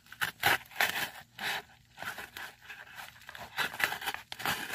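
A mailed package being cut open with a small knife and its packing pulled apart: an irregular series of short scrapes, tears and crinkles of paper and plastic.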